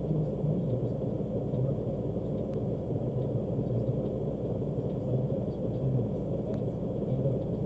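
Engine idling, heard from inside the cab of a vehicle stopped in traffic: a steady low rumble.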